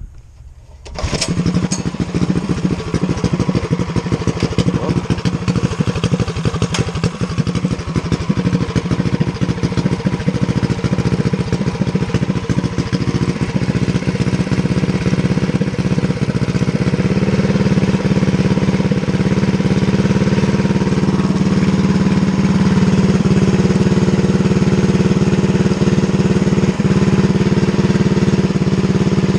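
Coleman CT100U minibike's Stage 3 Predator 212 single-cylinder engine, fitted with a performance cam, catching about a second in and then idling unevenly. The idle smooths out and grows a little louder past the halfway point.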